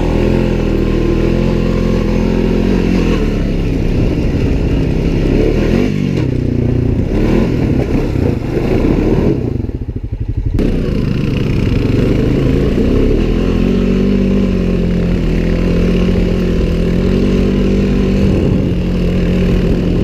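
Off-road vehicle engine running under changing throttle while riding a snowy trail, its pitch rising and falling. About ten seconds in the throttle is briefly let off and the engine sound drops, then picks back up.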